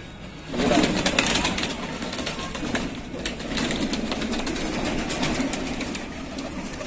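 Flock of domestic pigeons cooing and moving about on a concrete floor, with a flurry of sound starting about half a second in and many light taps of birds pecking at scattered grain.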